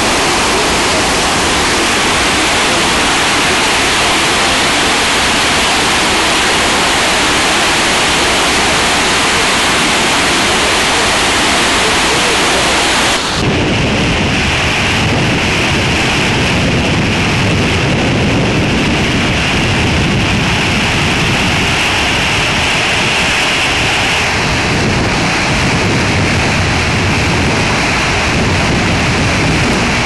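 Tortum Waterfall's water falling into its pool: a loud, steady rush of noise. About a third of the way through it changes abruptly to a deeper, fuller rush.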